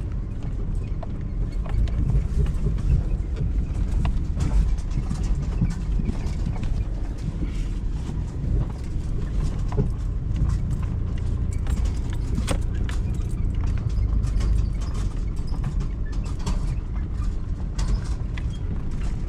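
Vehicle driving, with a steady low road and engine rumble and frequent small knocks and rattles throughout.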